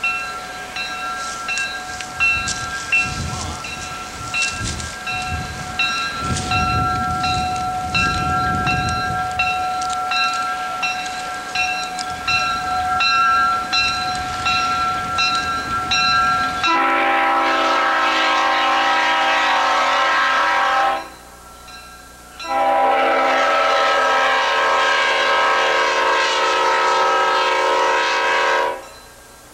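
Diesel locomotive approaching with a bell ringing in a quick, steady rhythm and a low rumble. About seventeen seconds in, its air horn sounds two long blasts, and a short blast starts right at the end.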